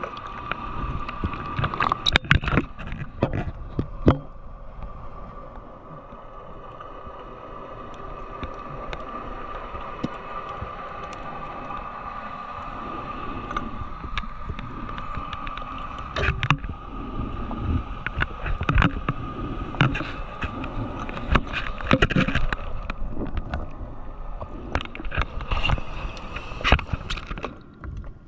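Underwater sound picked up by a diver's camera: a steady high hum under an irregular gurgling wash of bubbles, with scattered sharp clicks and knocks, several louder ones standing out.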